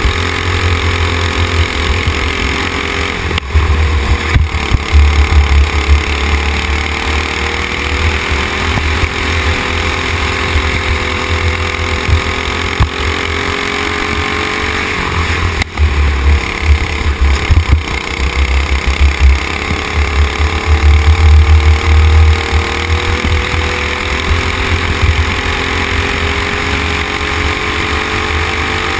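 Racing go-kart's engine running hard at speed. Its pitch drops briefly about halfway through as the driver backs off, then climbs again. Heavy wind buffeting rumbles on the onboard camera's microphone.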